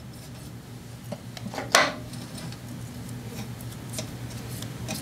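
Small brush working grease onto a snowblower transmission's small steel drive gear: faint rubbing and scraping, with one sharp click a little under two seconds in, over a steady low hum.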